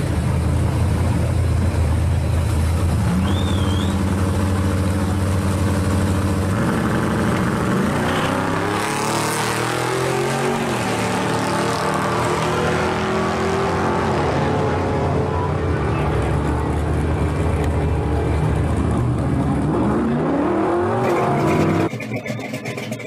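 A 1967 Chevrolet Chevelle and a 1967 Pontiac GTO drag racing. Both engines hold loud, steady revs at the starting line, then launch about six to seven seconds in and accelerate hard, the pitch rising and stepping down through the gear changes. The engine sound cuts off abruptly near the end.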